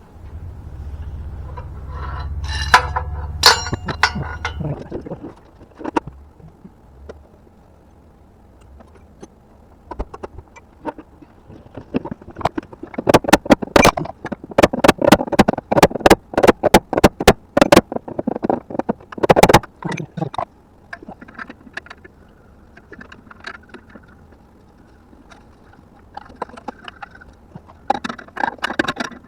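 A passing vehicle's low engine rumble for the first few seconds, then a long run of sharp, irregular metallic clicks and clinks from hand tools and parts being worked under the car.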